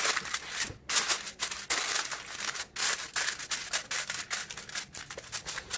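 Aluminium foil crinkling and rustling as hands press and smooth it over a baking tray, in irregular scratchy bursts that thin out near the end.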